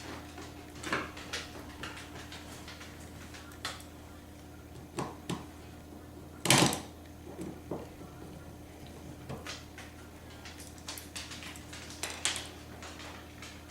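Scattered light metal clicks and knocks of a screwdriver and screws being worked on a steel mortise lock case as the lid screws are reinstalled. One sharper knock comes about six and a half seconds in, over a faint steady hum.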